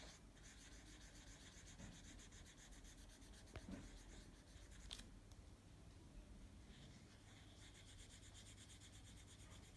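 Faint scratching of a black marker pen's tip on folded origami paper, dotting in a dog's eyes in quick short strokes, with two light clicks midway.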